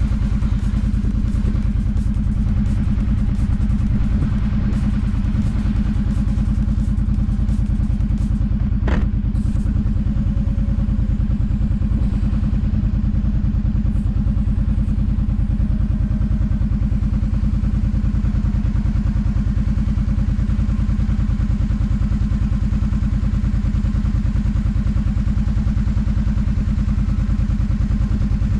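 Kawasaki Brute Force 750 ATV's V-twin engine running at a steady speed with no revving, with a single sharp click about nine seconds in.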